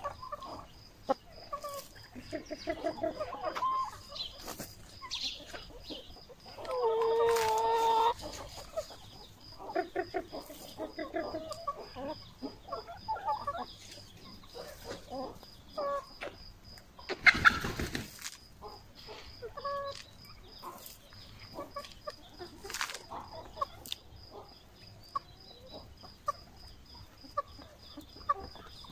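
A flock of hens clucking, with many short calls throughout and one longer, louder drawn-out call about seven seconds in. A brief loud burst of noise about seventeen seconds in.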